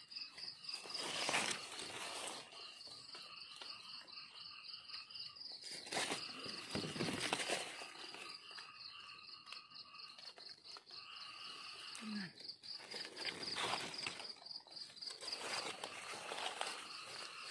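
Night-time insect chorus, with crickets trilling steadily in a fast high pulsing trill. A few brief rustles and scrapes of digging in leaf litter come through it.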